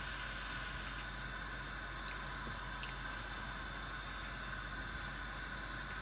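Milk pouring in a steady stream from a plastic jug into a nonstick frying pan of boiled barley.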